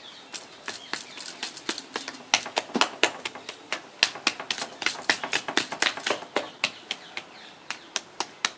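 Rapid, irregular sharp tapping, several taps a second, from a tool working on the dog sculpture.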